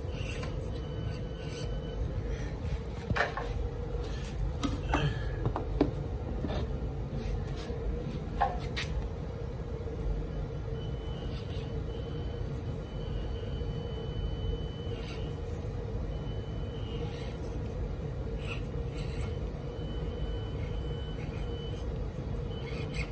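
Axial SCX24 micro crawler's small electric motor and drivetrain whining steadily as it creeps over wooden blocks. A few sharp knocks of tyres and chassis against the wood come in the first part, and a higher on-and-off whine joins later as the throttle is worked.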